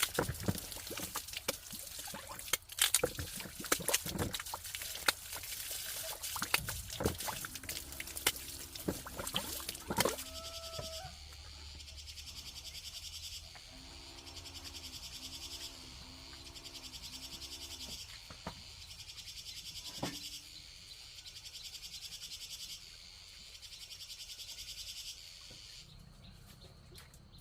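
Sharp knocks and clatter for the first ten seconds. After that, outdoor insects call in a high buzz that switches on and off every second or two, along with a low animal call of short repeated notes.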